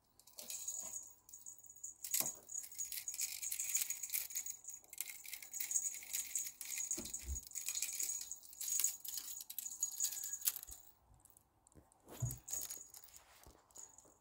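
Small metallic jingling from a cat wand toy, shaken in quick irregular bursts as the cats bat at it, with a dull thump about seven seconds in.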